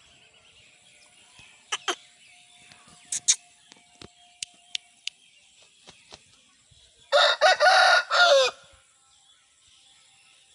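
Aseel rooster crowing once, a single crow of about a second and a half starting about seven seconds in. A few short sharp chirps come before it.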